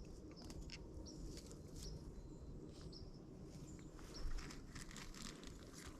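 Faint rustling and scattered small clicks, with a few brief, faint high bird chirps.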